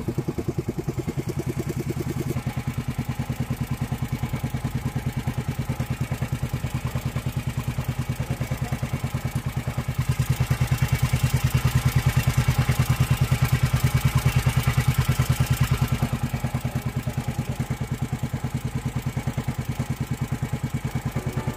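Small fishing boat's engine running steadily under way, a rapid even pulsing that grows louder for several seconds in the middle.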